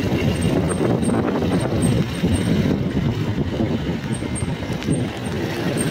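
Street noise: a steady low rumble of motorbike traffic.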